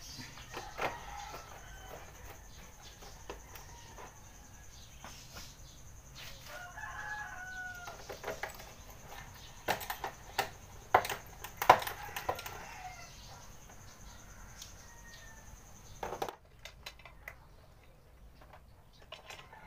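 A screwdriver clicks and knocks against screws and the plastic body panel of a Yamaha Mio Sporty scooter, in a cluster of sharp taps a little past the middle. A rooster crows once in the background about seven seconds in.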